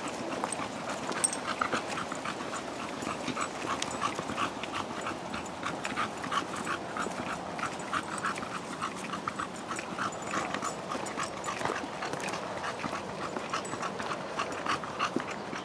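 Bulldog panting in quick, even breaths, a few a second.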